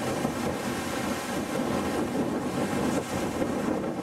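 Steady wind noise buffeting the microphone, over the rush of ocean surf on a beach.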